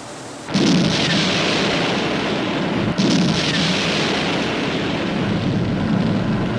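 Two explosion sound effects: a sudden blast about half a second in and a second about three seconds in, each rumbling on without dying away.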